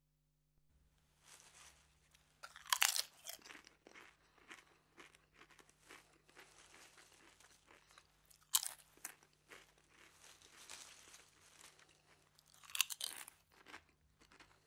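A person eating crunchy French fries: three loud crunching bites, one a few seconds in, one about halfway and one near the end, with steady crackly chewing between them.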